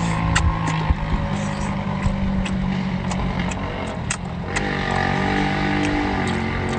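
A steady engine drone runs underneath, its pitch wavering slightly after about five seconds. Close wet eating sounds from biting and chewing octopus, lip smacks and clicks, come every second or so over it.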